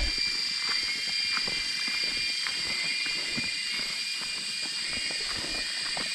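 Steady high-pitched chorus of forest insects, with scattered light clicks of footsteps on the trail.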